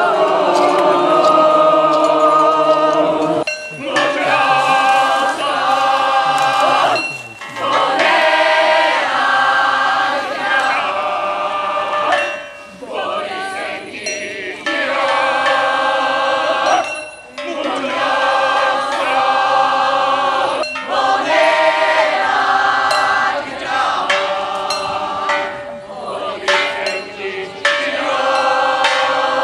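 A group of voices singing together in long held notes, several pitches at once, in phrases of about three to four seconds with short breaks between them.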